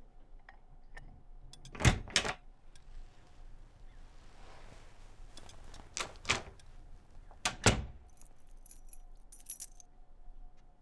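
Keys jangling and a key working a front door lock: three pairs of sharp clicks from the lock and latch as the door is unlocked and opened, then a light jingle of keys near the end.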